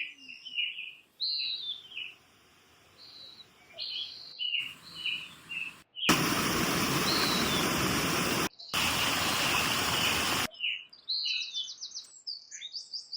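Birds chirping in short repeated calls, then several seconds of the steady rush of a waterfall, then more bird calls near the end. The sound changes abruptly at cuts between short clips.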